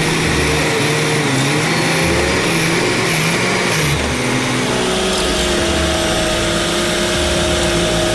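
Background music with a slow repeating bass beat and a held melody that changes about four seconds in, over the steady noise of a running vehicle engine.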